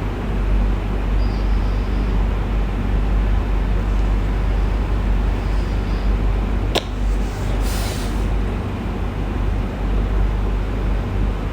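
Cat snoring: a low, steady rumble, with a sharp click about seven seconds in and a short hiss just after.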